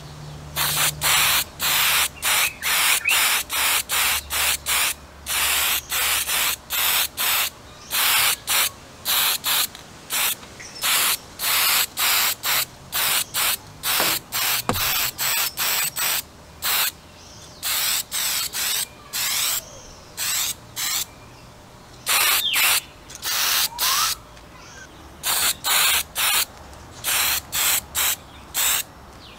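Aerosol spray-paint can hissing in many short bursts, most under half a second and about one or two a second, with a few longer pauses between them.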